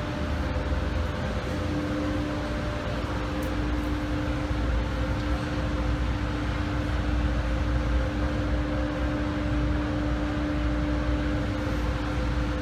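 Automatic car wash running: a steady rush of spraying water on a van, with a constant machinery hum underneath.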